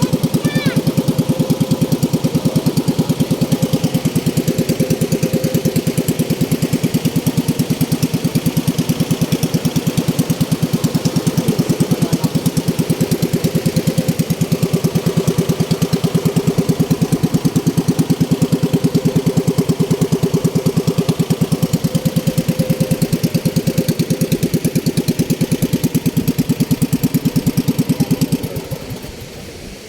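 A small engine runs steadily at close range with a fast, even beat, then drops away sharply near the end.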